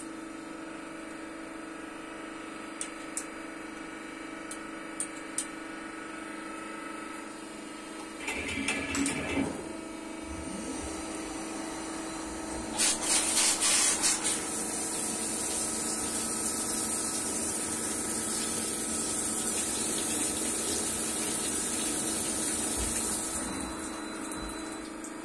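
CNC turning lathe running with cutting coolant pouring over the tooling: a steady machine hum throughout, with a few faint clicks at first. A little over ten seconds in, the hiss of coolant spray starts, loudest for about a second soon after, and dies away near the end.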